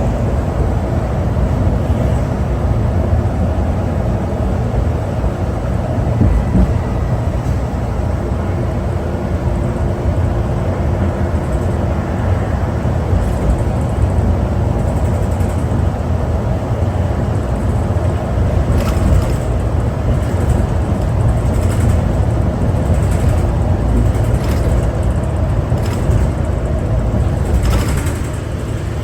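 Cabin of a 2011 New Flyer D60LFR articulated diesel bus under way: steady low rumble of its Cummins ISL9 engine and road noise, with a few short rattles in the last third.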